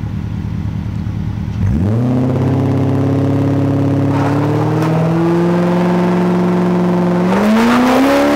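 BMW E34 5 Series wagon's engine through a Dynomax muffler: it idles, revs up sharply about two seconds in and holds high revs steadily with the brakes on, then climbs higher near the end as the rear tyre spins and smokes on the loose gravel and the car pulls away.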